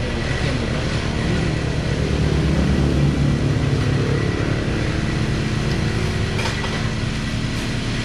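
Motor vehicle engine running steadily with road and wind noise, as while travelling along a road.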